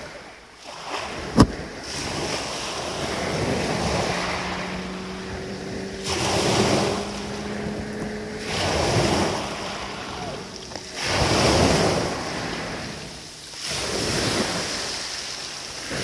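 Sea waves breaking and washing up a pebble beach, a surge of surf every two to three seconds. A single sharp click comes about a second and a half in, and a faint steady hum runs under the surf through the middle.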